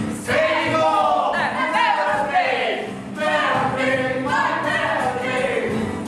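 Several voices singing together in long phrases of about three seconds, with a short break between them.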